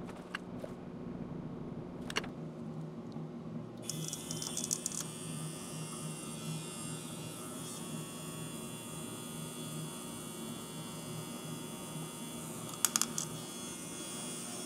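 Tiny metal gear motor whirring as it turns the 3D-printed ring gear of a small marble machine, coming in about four seconds in, with a few sharp clicks near the end.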